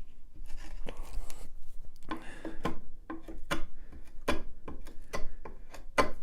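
Wood chisel paring pallet wood by hand: a series of short, irregular scraping strokes as a corner of a shelf joint is cleaned up.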